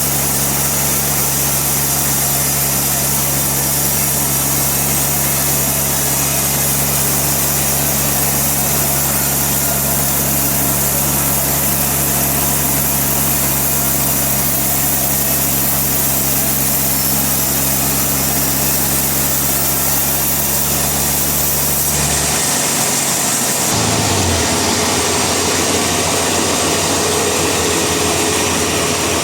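Sawmill machinery running steadily with a low engine hum. Near the end the sound changes abruptly: the low hum drops out and a different, lighter machine sound carries on.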